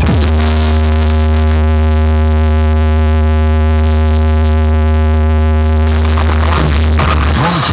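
A speaker-check track played very loud through a large DJ sound system: one long, deep synth bass note with a ladder of overtones above it, held steady and cutting off about seven seconds in. A short noisy bass swoop follows near the end.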